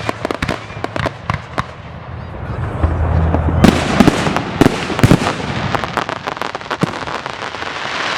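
Fireworks display: aerial shells bursting with sharp bangs and crackling. The bangs thin out about two seconds in, then a fresh volley of loud bursts and dense crackle starts about three and a half seconds in.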